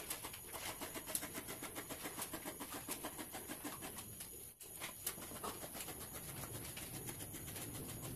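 Fabric scissors cutting through knit fabric: a quick, even run of snipping clicks, several a second, with a brief pause about four and a half seconds in.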